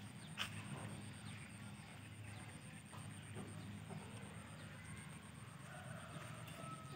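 Faint outdoor ambience: a steady low hum, with one sharp click about half a second in and a few faint chirps.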